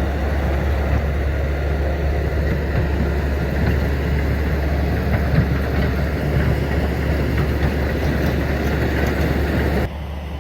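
Caterpillar D8K bulldozer's diesel engine running steadily at a distance, a loud low rumble that drops off abruptly near the end.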